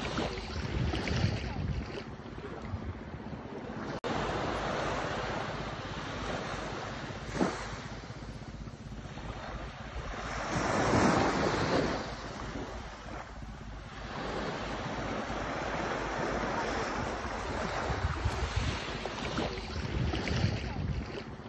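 Small waves washing up a sandy beach and drawing back, in slow swells, the biggest wash about halfway through. Wind rumbles on the microphone at times.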